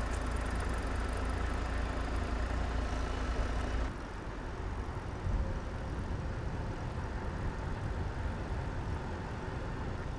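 Steady low rumble of road and wind noise from moving along a street. It changes abruptly about four seconds in, with a short thump about a second later.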